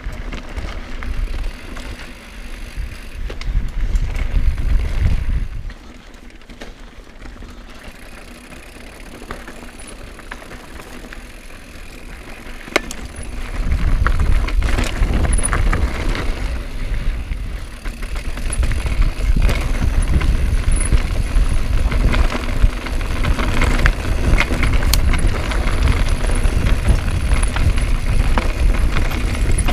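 Mountain bike riding down a rocky gravel trail: tyres crunching and skittering over stones, with the bike rattling and knocking and a low rumble on the camera. It eases off for several seconds about a third of the way in, then turns louder and rougher from about halfway.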